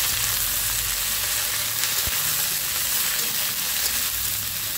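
Shredded cabbage sizzling in hot oil in a metal kadai as it is stirred with a spatula: a steady frying hiss with stirring in it.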